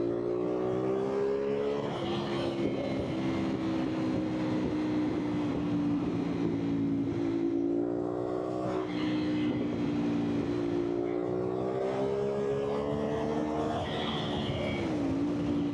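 CFMOTO 450SR's parallel-twin engine under way, its pitch climbing steadily as it pulls and dropping back a few times as it changes gear.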